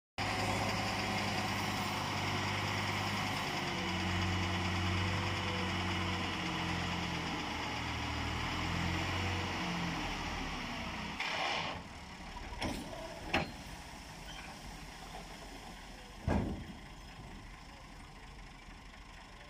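Tractor engine running as it tips a loaded hydraulic trailer of sand and earth, its pitch shifting a little. About eleven seconds in the engine sound drops away and a few sharp knocks follow.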